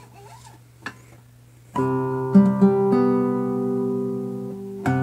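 Classical guitar played fingerstyle. After a soft passage, a bass note and chord are plucked about two seconds in and ring on while a few higher notes follow; another chord is struck near the end.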